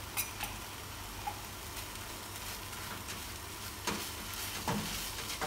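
Shredded chicken filling sizzling gently in a nonstick frying pan while a wooden spatula stirs it, with a few short clicks and scrapes of the spatula against the pan, two near the start and more in the second half.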